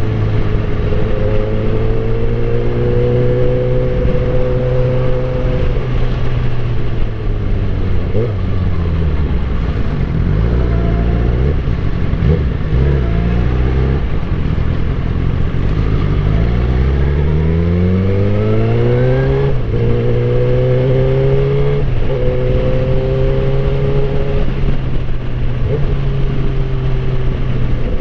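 Suzuki GSX-R1000 K8 inline-four engine under way. It holds a steady note, falls in pitch as the bike slows about six seconds in, and pulls in a long rising rev from about seventeen seconds. There is a sudden drop at an upshift just under twenty seconds in, and then it settles back to a steady cruise.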